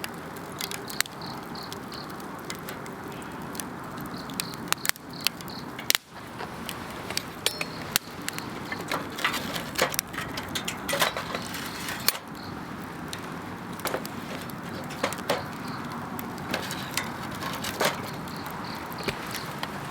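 Wood campfire crackling, with sharp pops and snaps scattered irregularly, thickest in the middle stretch. Insects chirp in steady, high pulses behind it, plainest near the start and the end.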